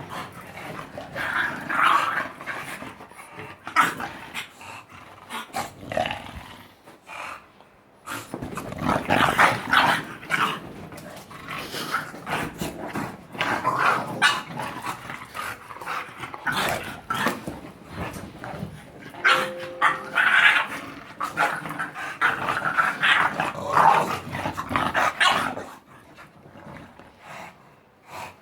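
A dog eating: irregular bursts of chewing and mouth noises, pausing briefly about seven seconds in and quietening near the end.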